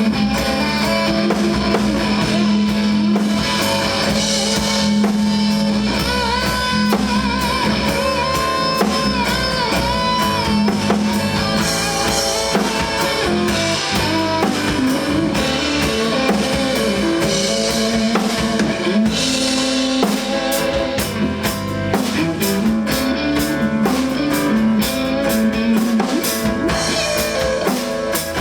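A band plays an instrumental passage: guitar over a drum kit, with a wavering melodic guitar line partway through.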